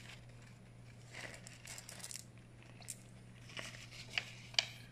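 Faint crinkling of a small plastic bag of spare football-boot studs being handled and opened, with a few small sharp clicks in the second half.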